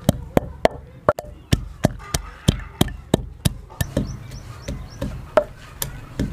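Long wooden pestle pounding peeled almonds in a clay mortar, about three strokes a second. The blows grow softer after about four seconds.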